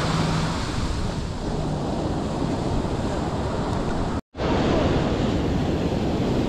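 Waves washing onto the beach and wind rumbling on the microphone, a steady noisy roar that drops out for an instant about four seconds in.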